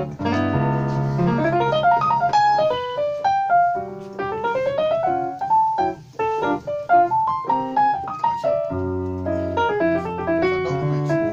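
Jazzy improvised piano on a Novation keyboard: chords over low bass notes, with a rising run of notes about four to five seconds in.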